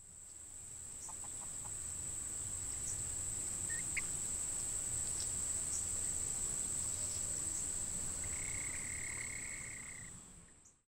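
Outdoor summer ambience: a steady high-pitched insect drone, with a few short chirps and a held call about two-thirds of the way through, fading in at the start and out near the end.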